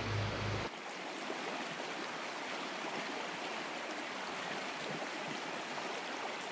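Small rocky trout stream running steadily, its water rushing over stones. A low hum cuts off just under a second in.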